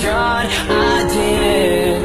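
Background music: a song with a singing voice over the instruments.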